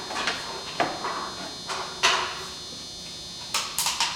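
Short clicks, taps and rustles of small tools and materials being picked up and handled at a workbench, the loudest about two seconds in and a quick run of three or four near the end.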